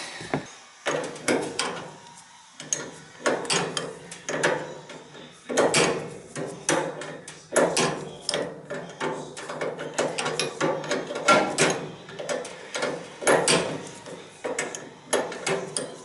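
Irregular metallic clicks and knocks of hand tools and parts worked at a gas space heater's burner assembly while a replacement thermocouple is fitted.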